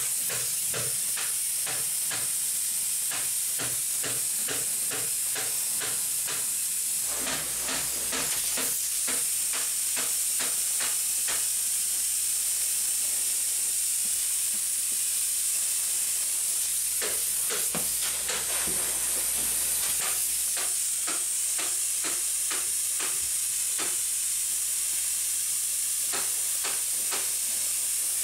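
Steady high hiss of insulation being sprayed from a hose and spray gun into a wall cavity behind netting, with a run of fast, irregular clicks throughout.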